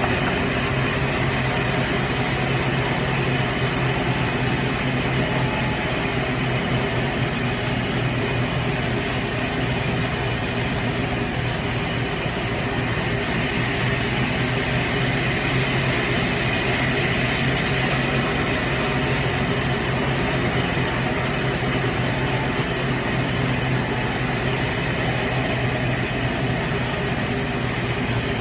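Sawmill saw running steadily: a constant low motor hum under a continuous hissing whir as the blade cuts through wood. The whir grows a little brighter from about halfway through for several seconds.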